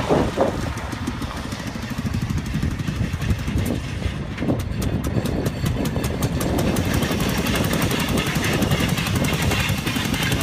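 Rail speeder's small gasoline engine running as the motorcar rolls along the track and passes close by, with a rapid, even putter that grows louder in the second half.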